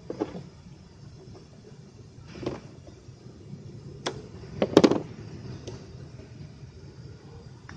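Scattered clicks and knocks of hand tools and parts being handled while a fuel filter is removed, with the loudest cluster of sharp clacks a little before the middle.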